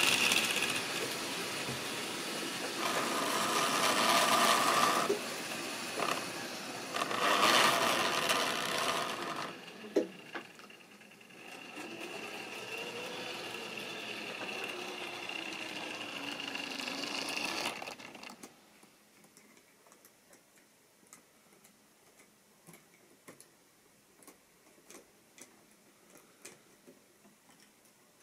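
Model railway train of tank wagons running close by on sectional track: a fast clattering rumble of wheels over the rail joints, with the loco's motor whine. The sound drops about ten seconds in to a softer run with a slowly rising and falling motor whine, and stops abruptly about eighteen seconds in. Only light scattered clicks follow as the rolling stock is handled.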